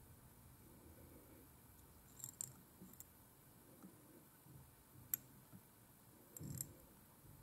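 Near silence with a few faint clicks and light handling noise from hands and tools working a fly at the tying vise; the sharpest click comes about five seconds in.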